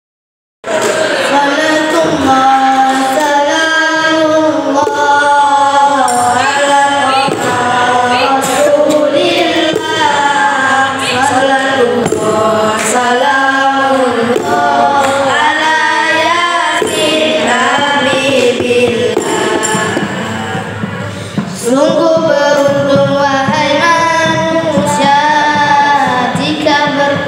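A group of boys singing a shalawat nasyid, praise of the Prophet, into microphones. The singing begins a little under a second in.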